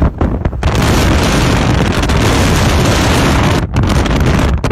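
Strong storm wind buffeting the microphone: a loud, dense rush that breaks off briefly near the end.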